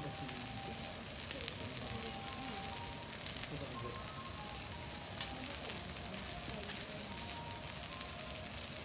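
Wagyu beef searing on a steel teppanyaki griddle: a steady sizzle of fat and juices frying, with frequent small crackles and pops.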